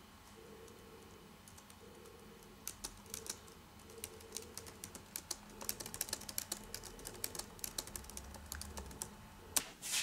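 Typing on an Asus laptop keyboard: quick, irregular key clicks, sparse at first and busier from about two and a half seconds in. A single louder knock comes just before the end.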